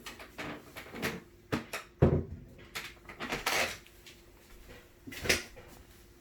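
Handling noise: a string of separate knocks, clicks and rustles, loudest about two seconds in and again after five seconds, over a faint steady tone.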